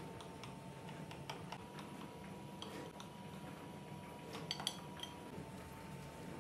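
Kitchen knife cutting through a soft baked cake in a glass dish: faint small clicks of the blade, with a couple of sharper clinks of metal against glass about four and a half seconds in.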